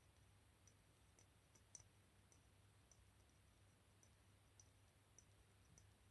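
Faint, sharp clicks from an agnes b. solar chronograph wristwatch with a Seiko V175 movement being worked by hand, roughly two a second, one louder click a little under two seconds in.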